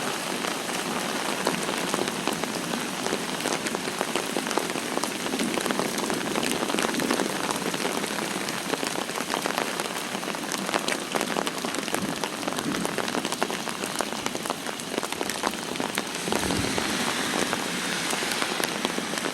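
Heavy rain falling steadily, a constant hiss dense with the hits of individual drops striking surfaces close by.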